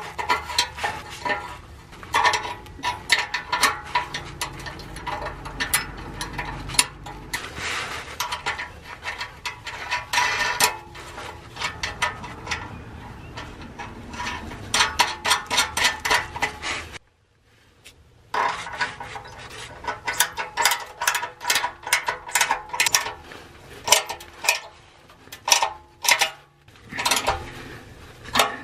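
Hand ratchet wrench clicking in quick runs while nuts are run down on a new muffler's bolts, with a brief pause about 17 seconds in.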